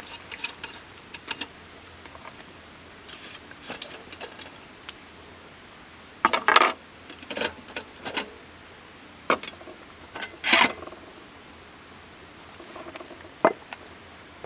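Dishes and utensils being handled: scattered clinks, taps and clatters. The loudest come about six and a half and ten and a half seconds in.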